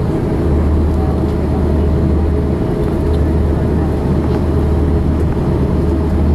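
Steady low rumble inside the cabin of an Airbus A340-600 taxiing, its Rolls-Royce Trent 500 engines at low taxi power and its wheels rolling on the taxiway, with a faint steady hum above the rumble.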